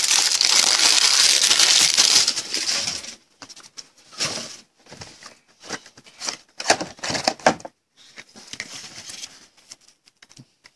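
Plastic wrap on a pack of BCW toploader card holders crinkling loudly as it is torn open, stopping about three seconds in. Then scattered light clicks and rustles of rigid plastic toploaders being handled.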